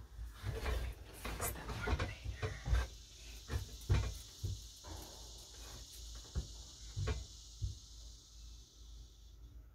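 Wooden shelf board knocking and scraping against metal shelf brackets as it is handled into place, in irregular knocks, the loudest about four seconds in. Behind it, a steady high insect drone that stops near the end.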